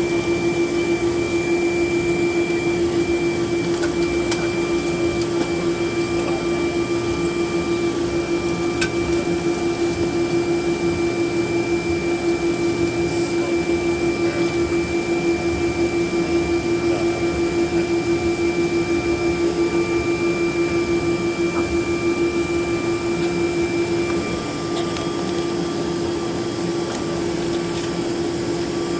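Cabin noise of a Boeing 777-200ER taxiing: a steady hum of engines at idle and cabin air, with a steady droning tone, a thinner high tone and a fast regular pulsing. The sound drops a little and the high tone stops about 24 seconds in.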